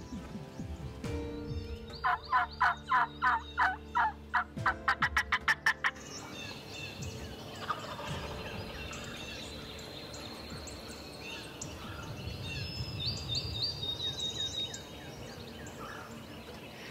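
Wild turkeys calling: a loud run of rapid, sharp notes that comes faster and faster over about four seconds, then fainter birdsong.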